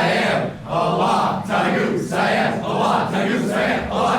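A crowd shouting a chant in unison, loud voiced calls repeating in a steady rhythm about every half second.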